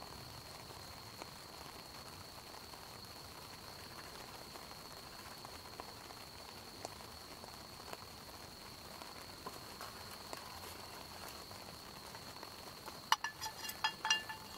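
Campfire crackling softly, with a steady high insect trill behind it. Near the end, several ringing metallic clinks of a utensil against metal cookware.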